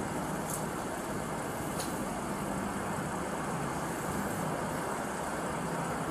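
A motor vehicle idling: a steady low hum under an even hiss, with two faint ticks.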